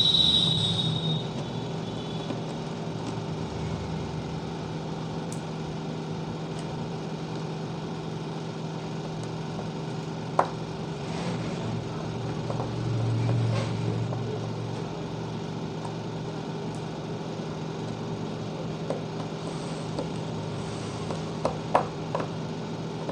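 A steady low hum with a few sharp clicks and taps: a loud click about ten seconds in and a small cluster of clicks near the end.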